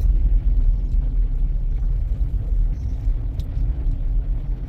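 Steady low rumble of a vehicle driving on a snowy road, heard from inside the cabin: engine and tyre noise with no sharp changes.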